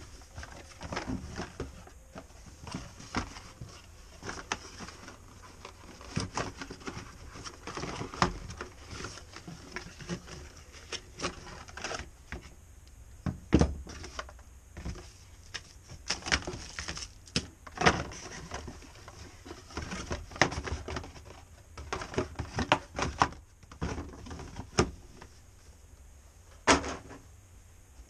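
Cardboard packaging being opened and handled: box flaps and a cardboard insert scraping and rustling, with irregular taps and knocks on a wooden workbench, the loudest about 13 seconds in.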